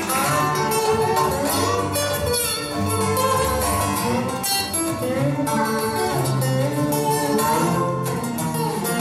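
Solo acoustic guitar played live, fingerpicked: quick plucked treble notes over deep bass notes, a fast instrumental.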